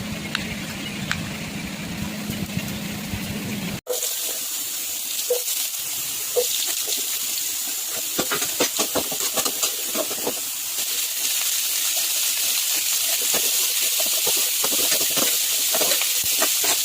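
Water running for the first few seconds. After a sudden cut, food frying in hot oil: a steady high sizzle with many small crackles and pops, growing a little louder.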